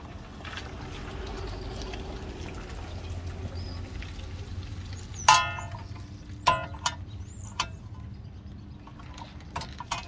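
A steel wrench clinking against the rear brake caliper and suspension parts as it is worked free: one loud ringing clink about five seconds in, then a few lighter clinks. A steady low rumble sits beneath.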